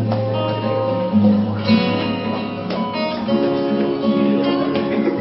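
Solo acoustic guitar strumming and letting chords ring, the instrumental intro of a song.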